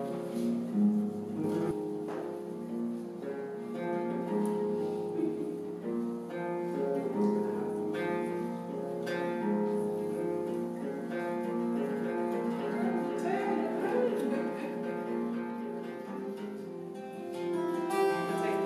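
Music played on a plucked string instrument, a steady run of picked notes ringing over one another.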